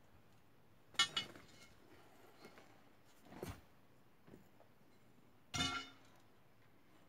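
A handful of short, sharp clinks and knocks on a quiet background: a pair about a second in, another a couple of seconds later, and a longer one with a brief ring near the end.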